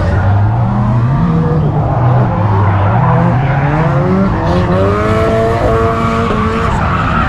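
Car engines revving, their pitch rising repeatedly from about three seconds in, with tires squealing over a steady low rumble.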